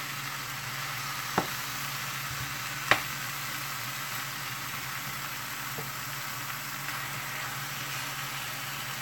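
Chicken pieces sizzling steadily in a hot pot with onions and peppers, with two sharp clicks of metal tongs against the pot at about one and a half and three seconds in.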